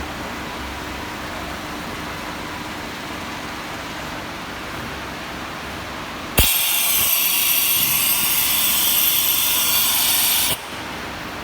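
Takeda TK24S-2000MV-10 machine running with a steady hum. About six seconds in, a click starts a loud, even hiss that lasts about four seconds and cuts off sharply.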